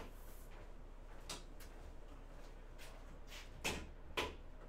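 A few scattered knocks and clacks of things being handled off-camera, like cupboard doors or boxes being moved, with the two loudest about half a second apart near the end.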